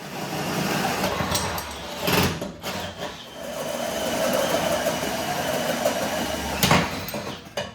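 Electric drill driving a hole saw through a sheet-metal firewall: the motor running steadily under load as the saw cuts, with a sharp knock about two seconds in and another near the end.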